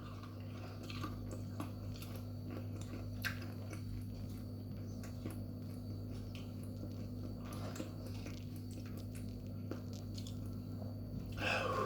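A person chewing a mouthful of chilli-coated peanuts, with small crunches and mouth clicks, over a steady low hum. A short louder noise comes near the end.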